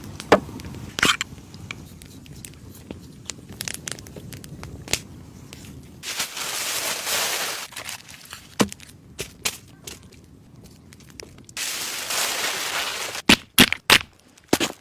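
Irregular crunching, crinkling and clicking, with two stretches of steady hiss and a quick run of sharp knocks near the end.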